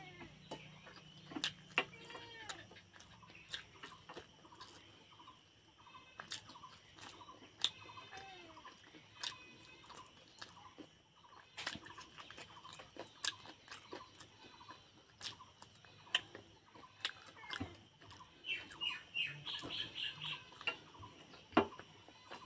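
Birds calling off and on, with a cluster of quick high chirps near the end, over scattered sharp clicks and taps of fingers mixing rice on a steel plate.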